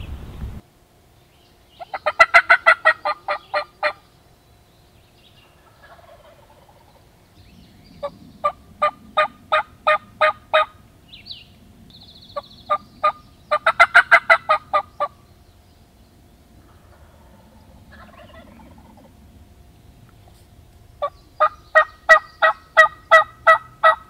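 Turkey call worked by a hunter, sounding runs of hen yelps: four loud series of evenly spaced yelps, each about one and a half to three seconds long, with pauses between.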